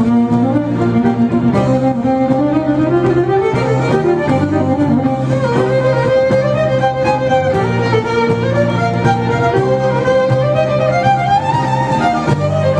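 Violin playing a melody of long held and gliding notes over a steady low accompaniment, in a Celtic style.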